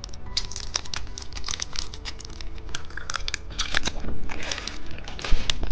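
Plastic candy wrapper crinkling and being torn open, an irregular run of sharp crackles with one louder crack near the end.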